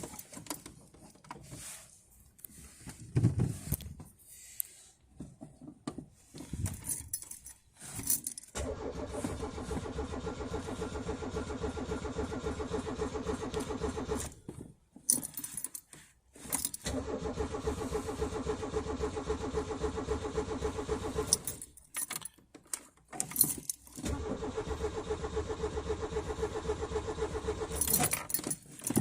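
Peugeot 205 being cranked on a cold start, a hard starter: the starter turns the engine over in three runs of about five seconds each without it catching. Keys jangle and click at the start and between the attempts.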